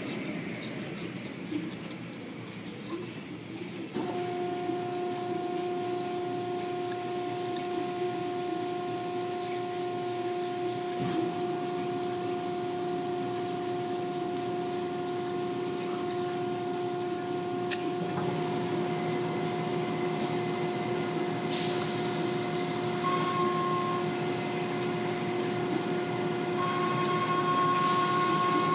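Automatic tunnel car wash machinery running: a steady motor hum with a held tone that comes in about four seconds in, over a hiss of water and foam spray. One sharp knock comes about two-thirds of the way through, and the spray hiss grows louder near the end.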